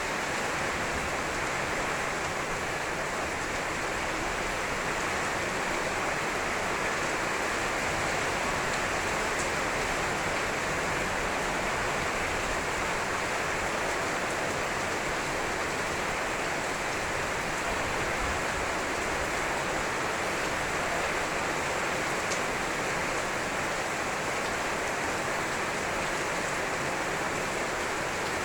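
Heavy rain falling, a steady, unbroken hiss.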